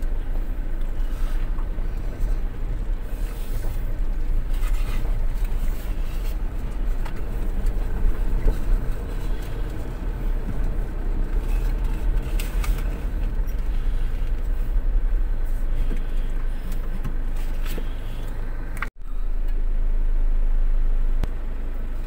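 Car driving, with a steady low engine and road rumble and a few short knocks and rattles. The sound cuts out for an instant near the end, then carries on steadier.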